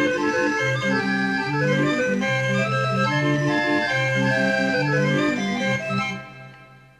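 Barrel organ (a Belgian 'viole') playing a tune, melody over bass notes, which fades out about six seconds in as the piece ends.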